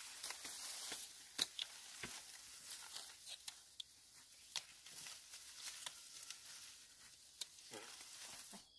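Dry rice stalks, leaves and grain heads rustling and crackling, with frequent sharp snaps and clicks, as upland rice panicles are picked by hand and gathered into a bundle.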